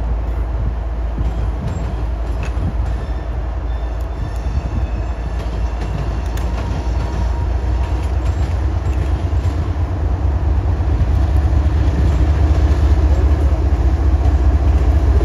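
CSX freight train led by a GE Evolution-series diesel locomotive approaching: the engine's deep rumble grows steadily louder as it nears, through the second half.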